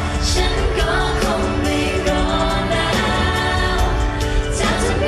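Live pop song over a concert sound system: a woman singing into a handheld microphone, backed by a steady drum beat and bass.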